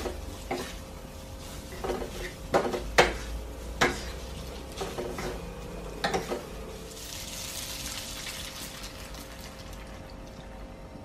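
Tongs and a silicone spatula tossing fettuccine in a hot frying pan, knocking and scraping irregularly against the metal over a low sizzle. After about seven seconds the knocks stop and a hiss rises for a couple of seconds as milk is poured into the pan.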